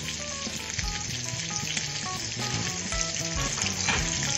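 Marbled steak searing in butter with herbs and garlic in a frying pan: a steady, even sizzle.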